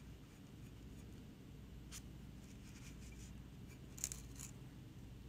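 Faint scratching of a small paintbrush laying glaze onto an unglazed ceramic palette, with a few light ticks about two and four seconds in, over a low steady hum.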